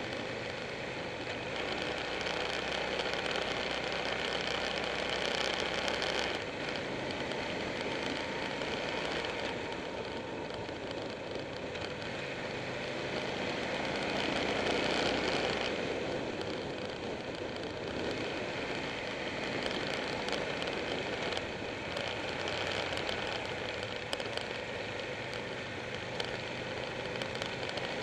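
Buell 1125R's V-twin engine running under way with wind noise rushing over the bike-mounted camera. The engine note steps to a new pitch about six seconds in and swells louder around the middle.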